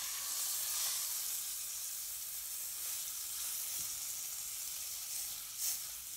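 Beef eye round roast searing in hot oil in a metal pot: a steady sizzle as the meat is turned onto another side with tongs. A short click near the end.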